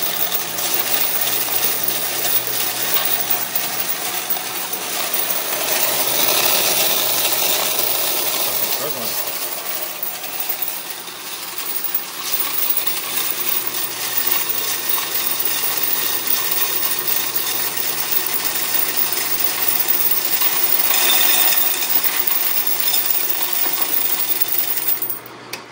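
Electric coin counter running, spinning a load of quarters through its counting disc and dropping them into the bucket below: a dense, steady clatter and jingle of coins that cuts off abruptly near the end as the machine stops.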